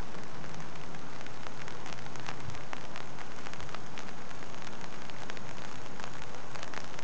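Steady rain falling on a pond, an even hiss with many separate drop ticks scattered through it.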